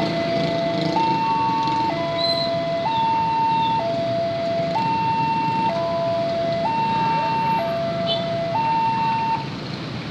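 Electronic two-tone warning alarm of a railway level crossing, alternating between a lower and a higher tone about once a second and warning that a train is coming through. It cuts off about nine seconds in, over a steady background rumble.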